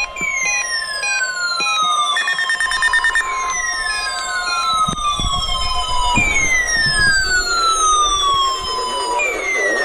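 Weather alert radio sounding its siren-style alarm, set off by a weekly weather radio test: a falling tone about three seconds long, starting four times. For the first three seconds a steady tone sounds with it, along with a short spell of rapid beeping. A lower steady tone comes in about seven seconds in.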